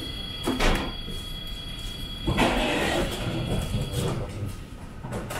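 Tram interior sounds: a steady high-pitched tone that stops about four seconds in, a sharp knock near the start, and a rushing hiss in the middle over a constant low rumble.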